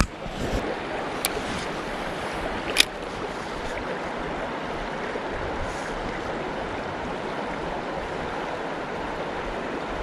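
Mountain stream water rushing steadily. Two sharp clicks about a second and a half apart, about a second in, the second one louder.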